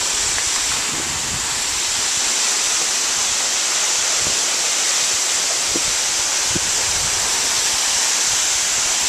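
A large waterfall pouring steadily into its pool: a constant, even rush of falling water and spray.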